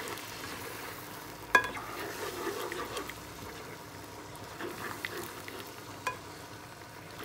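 A spatula stirring a drumstick and tomato curry in a hot pan, over a steady sizzling hiss from the sauce. The spatula clacks sharply against the pan twice, loudest about one and a half seconds in and again about six seconds in.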